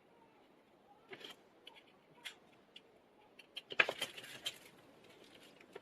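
Light clicks, taps and scratchy scrapes of small phone parts and tools being handled during reassembly, in a loudest cluster of rapid clicks about four seconds in.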